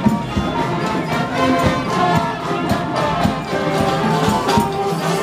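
Parade band music: held instrumental notes over a steady beat of drum hits.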